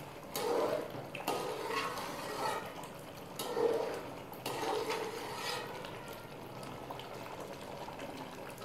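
Wooden spoon stirring thick chicken gravy in a metal pot, a wet, churning sound from the sauce being fried down until the oil separates. A few sharp knocks of the spoon against the pot.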